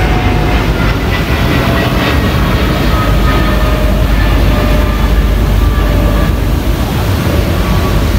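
Steady rumble of a cruise boat underway, its engine running under loud wind buffeting the microphone and water rushing past the hull.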